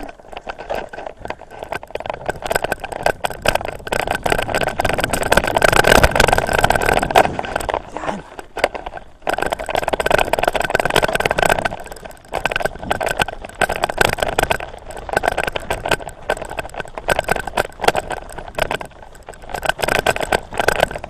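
Riding a bicycle on a gravel trail: wind buffeting the camera microphone over a dense crackle of tyres on gravel, swelling and dipping in loudness every few seconds.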